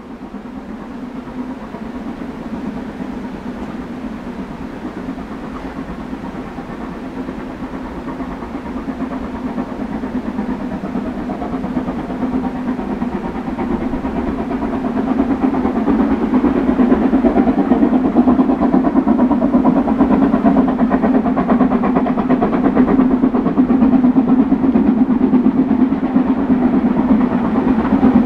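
Narrow-gauge train running on the Harzquerbahn, drawing nearer and growing louder over about the first fifteen seconds, then holding steady and loud.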